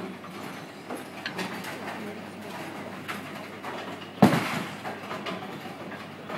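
Bowling ball dropped onto the wooden lane at release, a single loud thud about four seconds in, then rolling away, over the steady background noise of a bowling hall.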